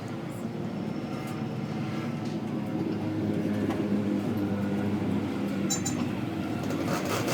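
Engine running steadily with a constant hum, getting a little louder about three seconds in.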